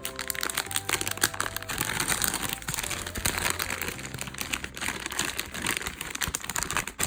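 Plastic-coated paper wrapper crinkling and crackling as it is handled and peeled off a squishy toy, in a dense, irregular run of crackles.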